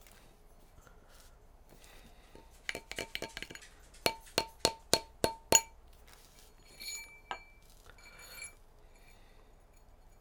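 Mallet striking a brass ring on a ring mandrel to shape and size it. A quick run of light taps is followed by six sharp strikes about a third of a second apart, each with a short metallic ring, then a few softer clinks.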